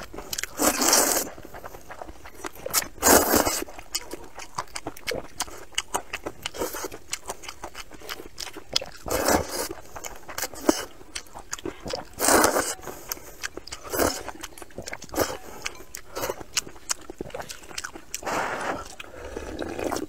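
Loud slurping of noodles in spicy broth, about five long slurps a few seconds apart, with short wet clicks of chewing and lip smacking between them.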